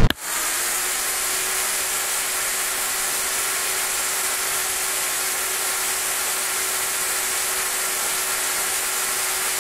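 Upright vacuum cleaner running steadily: an even hiss with a single steady hum beneath it, cutting in abruptly at the start.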